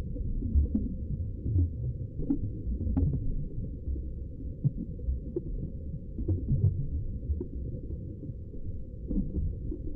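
Heavily muffled film sound effect of dull, low heartbeat-like thumps, with all the higher sound cut away. It is the muffled hearing of a wounded first-person character.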